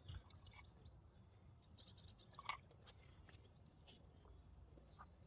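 Near silence outdoors: faint ambience with a few distant bird chirps and scattered light clicks and taps.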